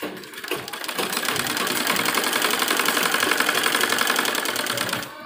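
Sewing machine running, stitching a sleeve seam through dress fabric: a fast, even run of needle strokes that picks up speed over the first second and winds down about five seconds in.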